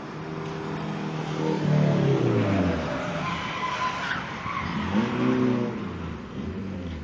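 Sports car engine revving, its pitch dropping and then rising and falling again, with tyres squealing as the car slides and spins on the road.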